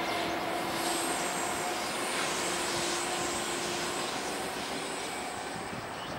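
Distant train running along the line, a steady rushing noise with a low hum that stops about four seconds in, slowly growing fainter as it moves away.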